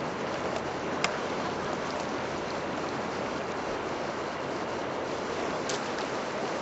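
Steady rush of flowing river water around a raft on a slow whitewater stretch, with a sharp click about a second in and another near the end.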